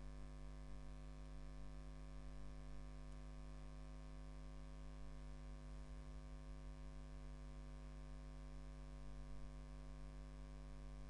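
Steady electrical mains hum with a faint hiss.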